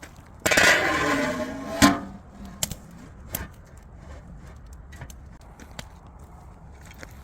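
Wood fire crackling with scattered sharp pops. About half a second in comes a loud hiss with a wavering pitched tone, lasting about a second and a half and ending in a sharp crack.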